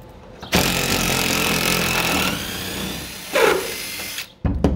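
Cordless DeWalt 20V impact driver hammering at a rusted bolt through the truck's wooden bed planks to back it out. It starts about half a second in, runs for about three and a half seconds with a brief louder sound near the end, then stops.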